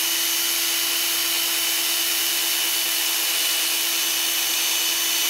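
Black & Decker power drill running at a steady, even-pitched whine as its bit bores a hole through the black plastic drone housing.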